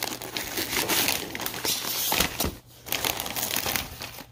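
Plastic poly mailer bag crinkling and rustling as it is torn open and handled, with a brief lull about two and a half seconds in.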